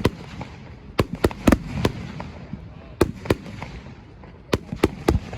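Fireworks bursting overhead: about ten sharp bangs in quick clusters of two or three, with brief gaps between.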